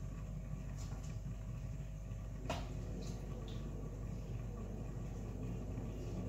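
Steady low hum of kitchen background noise, with a few faint clicks and one sharper knock about two and a half seconds in, as boiled garden eggs are peeled by hand.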